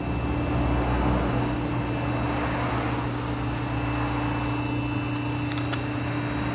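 Steady droning hum with an even rushing noise from machinery running in a car repair shop.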